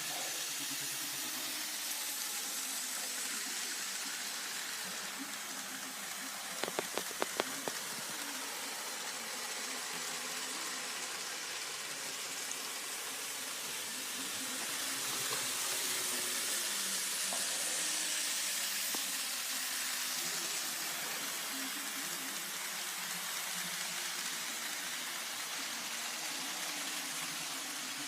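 Model train running on N scale track: a steady hiss with a faint wavering motor hum, and a quick run of about five clicks about seven seconds in.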